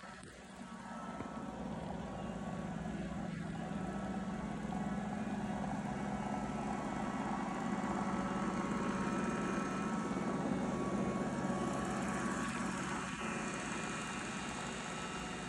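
Roomba robot vacuum running across carpet: a steady motor and brush hum that grows louder over the first couple of seconds, then holds.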